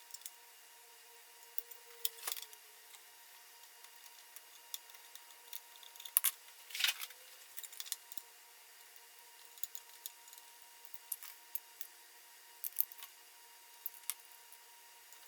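Scattered light clicks and clinks of small metal parts and hand tools being handled while a Dremel scroll saw is taken apart, a little louder about two, six and seven seconds in.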